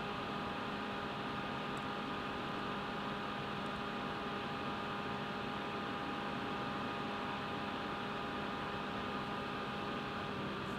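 Steady hum over a hiss, with several fixed tones; one of the tones stops near the end.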